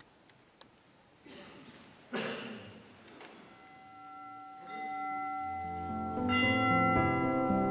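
Soft instrumental background music fading in: held ringing notes enter about five seconds in and build, growing louder toward the end. Earlier there are only a few faint clicks and a short rustling swell about two seconds in.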